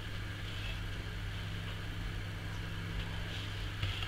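Room tone: a steady low hum with nothing else standing out.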